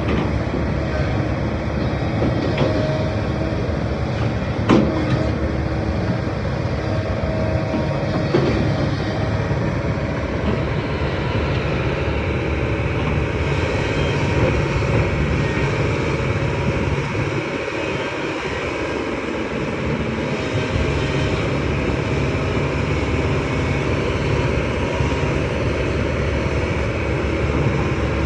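Hyundai excavator's diesel engine running steadily under work, with two sharp clanks about five and eight seconds in.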